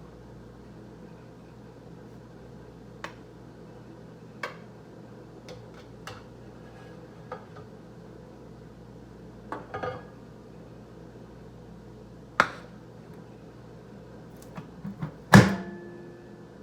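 Steady hum of a microwave oven running, with scattered light clicks and knocks and one loud clunk with a brief ring about fifteen seconds in.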